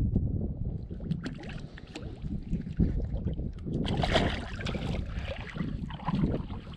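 Shallow river water splashing and sloshing around hands as a rainbow trout is held in the water and released, with a louder splash about four seconds in. Wind rumbles on the microphone throughout.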